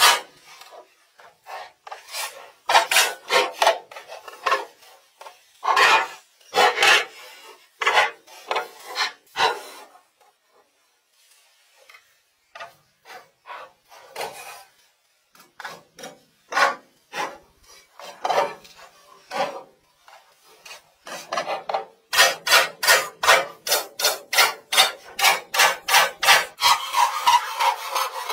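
Hand saw cutting through a wooden board: repeated back-and-forth strokes in runs with short pauses, then a steady fast run of about two to three strokes a second in the last six seconds.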